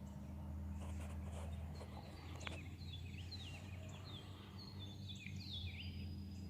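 Songbirds singing, a busy run of short chirps and quick downward-sliding notes that thickens about two seconds in, over a steady low hum.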